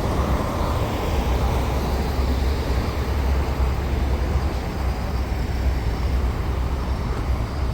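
Steady low rumble of a vehicle on the move, engine and road noise blended with no distinct events.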